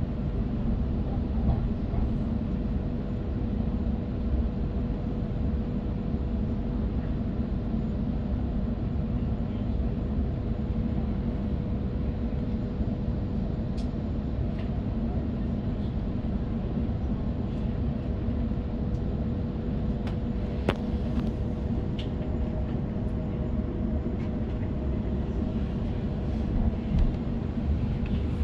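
Steady running noise of an electric suburban passenger train heard from inside the carriage, a low rumble with a steady hum, and a single sharp click about two-thirds of the way through.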